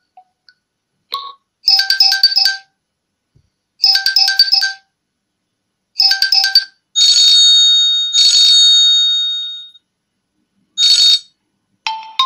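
Huawei P20 ringtone previews playing from the phone's loudspeaker as tones are tapped in the ringtone list: three short bursts of the same chiming tune, each cut off after under a second, then one longer ringing tone lasting nearly three seconds that fades out, a brief snippet, and a different melody starting just before the end.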